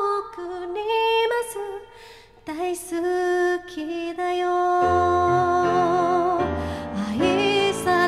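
A woman singing a slow Japanese ballad with vibrato, accompanying herself on a Yamaha grand piano. There is a short breath pause about two seconds in, and low piano chords come in fully about five seconds in.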